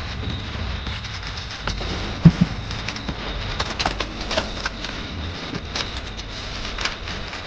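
A single hard thump about two seconds in, then irregular crackling of dry fallen leaves underfoot as someone walks across leaf litter, over a steady low background rumble.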